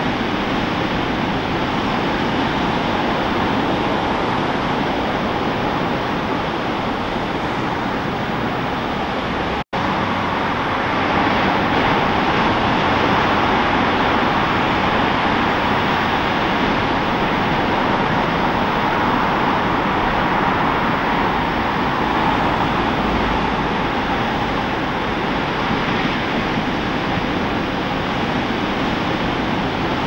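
Steady roar of ocean surf breaking, an even wash of white noise that cuts out for an instant about ten seconds in.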